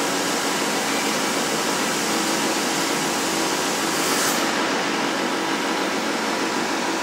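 CNC gantry plasma cutter's torch cutting thick steel plate: a loud, steady hiss of the arc and air jet. The highest part of the hiss falls away about four and a half seconds in.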